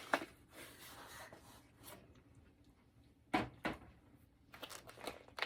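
Cardboard box being opened by hand: flaps lifted and the contents rustled, with a few sharp knocks and taps, two close together about three and a half seconds in and more near the end.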